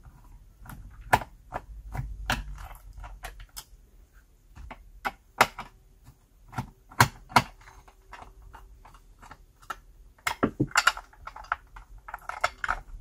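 Irregular small clicks and ticks of a screwdriver turning screws out of a steam iron's plastic housing, with a denser run of clicking and rattling near the end as the housing is handled.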